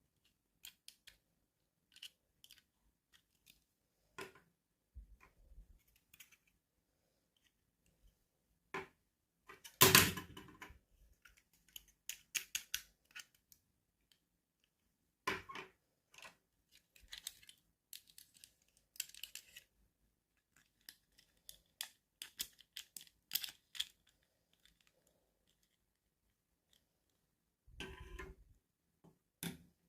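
Hands unboxing a small toy: packaging rustling and crackling with small clicks and taps, coming in scattered bursts, the loudest about ten seconds in.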